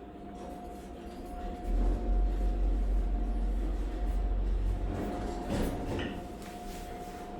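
Hotel elevator car travelling: a deep low rumble sets in about two seconds in and fades after about five, over a steady hum.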